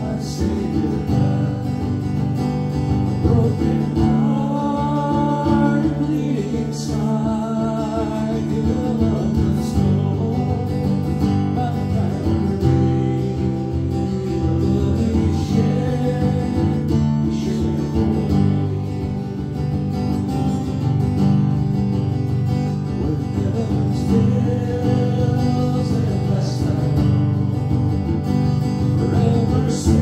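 Hymn sung to acoustic guitar accompaniment.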